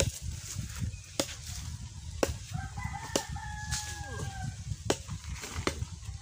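Rooster crowing once: one long held call that starts about two and a half seconds in and falls away at the end. A few sharp clicks sound over it.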